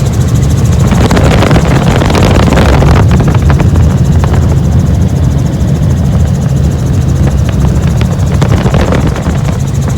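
Helicopter rotor and engine running loud and steady, with a rapid beat from the rotor blades.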